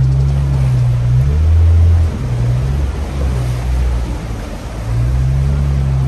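Jeep Wrangler engine running at low revs under load as it wades through a river, its note shifting up and down. Water rushes and splashes around the vehicle.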